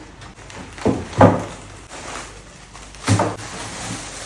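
A few dull thumps, about a second in and again about three seconds in, as bags and containers of market groceries are set down for unpacking.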